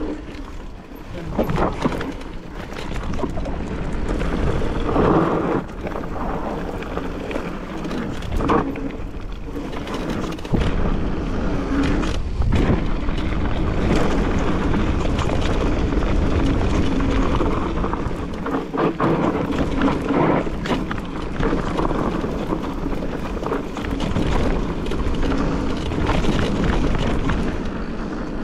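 Mountain bike riding over a rough trail: steady wind buffeting and rumble on the microphone, with the tyres and bike clattering over bumps throughout.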